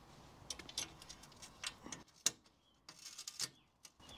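Glass being fitted into an aluminium greenhouse door frame by hand: a handful of separate sharp clicks and taps, the loudest about two seconds in.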